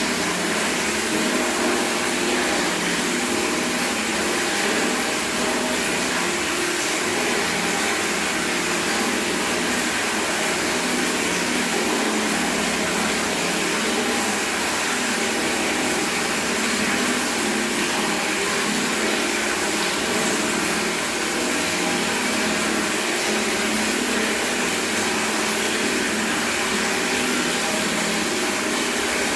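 Tap water pouring steadily from a faucet into a bucket, a constant splashing hiss with no pauses.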